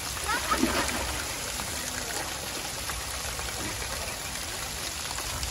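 Steady wash of surf breaking on a beach.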